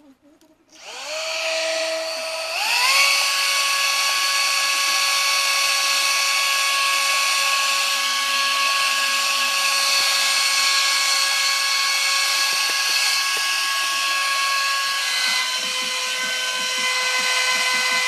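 Homemade handheld vacuum cleaner's electric motor and fan starting up about a second in. The whine rises in pitch and steps up again at about two and a half seconds, then runs steadily at a high pitch, dipping slightly near the end.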